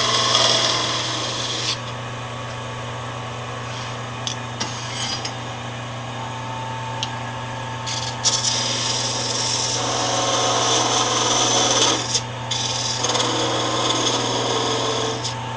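Wood lathe running with a steady hum while a cutting tool scrapes into the spinning wood in long hissing stretches. The stretches are loudest near the start and again in the second half, with quieter runs between. The cuts bring turned handle pieces down to thin necks at both ends.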